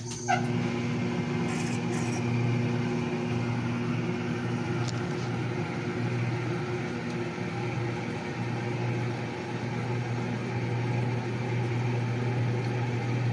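Frigidaire 1-18 washing machine starting up suddenly, then running with a steady motor hum as the water-filled tub sets the soaked load turning.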